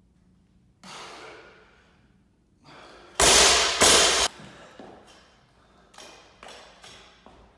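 A weightlifter breathing hard: one exhale about a second in, two loud forceful blasts of breath about three seconds in, then four short panting breaths near the end.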